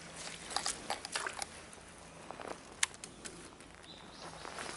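Irregular clicks and light knocks of a fishing reel and rod being handled as a lure is reeled up out of the water, with one sharper click near the middle. A brief high-pitched tone sounds about four seconds in.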